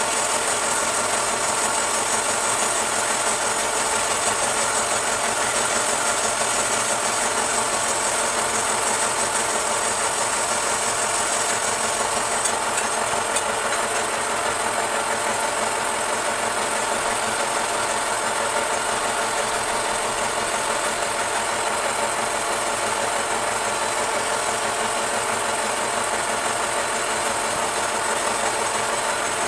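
Belt-driven wood lathe running steadily, its electric motor and V-belt humming, while a long turning chisel scrapes shavings off the spinning wood.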